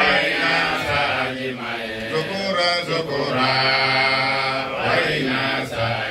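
A man's voice chanting a Muslim devotional song into a microphone, drawing out long held notes that step up and down in pitch.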